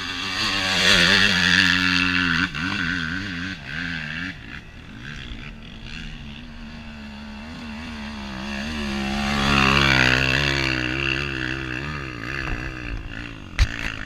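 Off-road trail motorcycle engines revving hard and unevenly as the bikes attack a steep climb, the pitch rising and falling with the throttle. Two surges, loudest about a second in and again about ten seconds in, and a sharp knock near the end.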